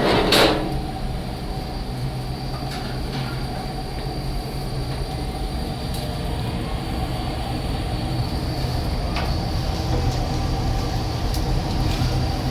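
A vehicle running with a steady low rumble, and a sharp knock about half a second in.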